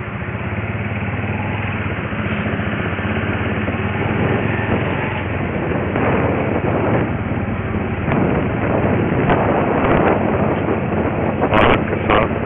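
Steady engine hum and road noise of a vehicle driving slowly along a street, with a couple of sharp clicks near the end.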